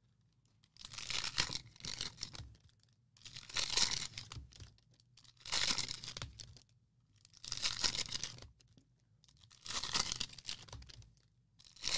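Cellophane wrappers of football trading-card packs being torn open one after another, about six separate tearing bursts roughly two seconds apart.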